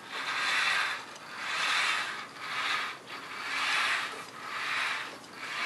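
Three-omni-wheel robot base, driven by geared Maxon motors, oscillating back and forth under a sinusoidal motor current. Its wheels and drive make a rasping, scraping sound that swells and fades about once a second.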